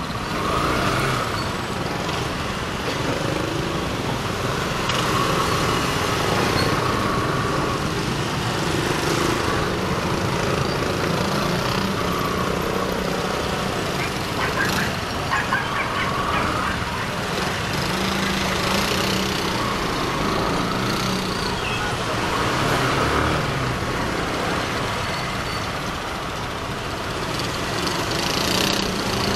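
Motorcycle street traffic heard from a moving motorcycle: a steady mix of small motorcycle and tricycle engines running, their pitch rising and falling as they speed up and slow down.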